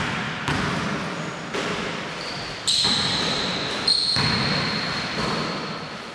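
A basketball bouncing on a wooden gym floor, with players' footfalls echoing in a large hall. A little before halfway come two sharp hits about a second apart, each followed by a high ring that slowly fades.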